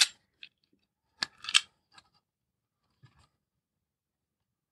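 Wire stripper snipping wire insulation: a sharp snip at the start and another snip with a short rasp about a second and a half in, then faint small clicks of wires being handled.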